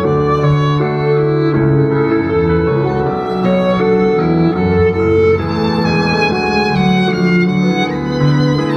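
Violin and contrabass duo playing a pop-style instrumental piece: the violin carries the melody in held notes over a line of low bass notes.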